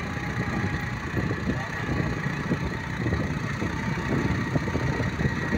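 Motorcycle engine running as the bike rides along, heard up close from the pillion seat: a steady rumble with an uneven flutter at the low end.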